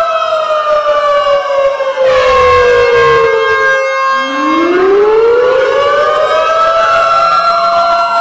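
Several tornado warning sirens sounding together: one winds slowly down in pitch over about four seconds, then winds back up, over other siren tones held steady.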